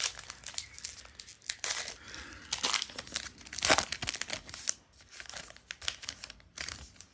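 A Topps Heritage baseball card pack wrapper being torn open and crinkled by hand, in a run of irregular crackles that are loudest around the middle.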